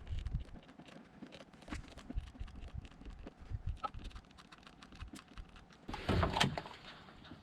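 Irregular light clicks and taps, with a louder, noisy scraping burst lasting about half a second near the end.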